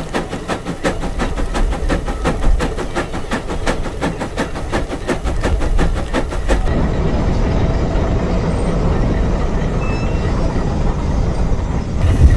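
Case 150 steam traction engine's exhaust chuffing in a fast, even beat as it works under load pulling a gang plow. About two-thirds of the way in, the beat gives way to a steady, duller low rumble.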